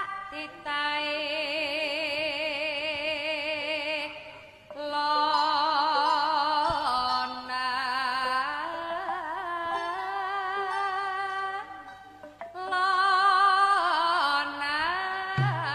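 A waranggono, a Javanese female singer, singing a solo vocal line into a handheld microphone. The long held notes carry heavy vibrato and ornamental turns, in three phrases broken by short pauses about four and twelve seconds in.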